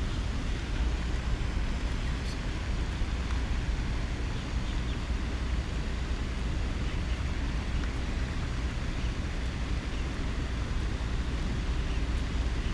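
Steady wind rumble on the microphone, a low buffeting with an even hiss above it.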